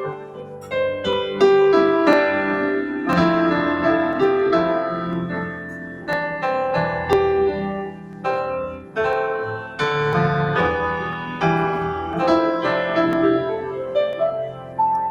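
Electric keyboard played in a piano voice: a gentle melody of ringing notes over chords, with new notes struck every half second or so.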